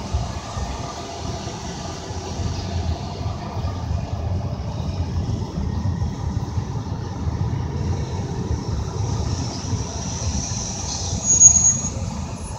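Car cabin sound while driving slowly in city traffic: a steady low engine and road rumble. Near the end, a short high-pitched squeal stands out as the loudest moment.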